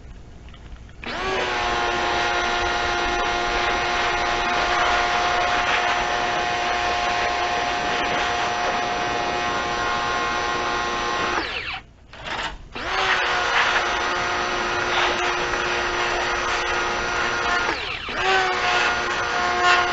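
Electric power tool motor running with a steady whine. It stops about halfway through, gives a brief blip, then starts again and runs on, dipping once near the end.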